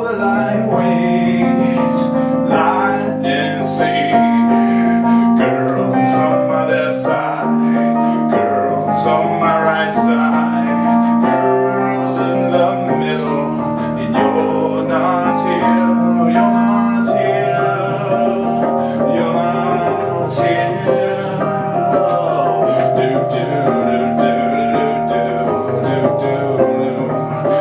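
Wurlitzer EP200 electric piano, a reed-based electric piano, playing a repeating riff: low notes change about every second beneath sustained chords.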